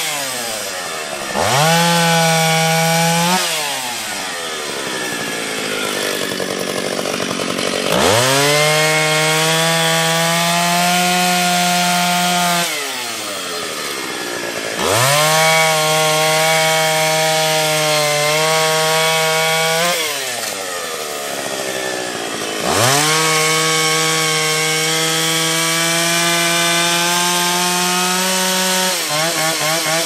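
Old Stihl two-stroke chainsaw cutting through logs. It revs up to full throttle four times, holding a steady high pitch for a few seconds each time, and drops back in between.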